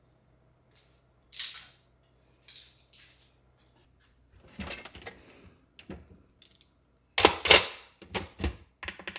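Hands handling a plastic UV mask-sterilizer case holding toothbrushes: a few brief swishes, then clicks and plastic clatter as the lid is opened and the brushes inside shift, loudest from about seven seconds in.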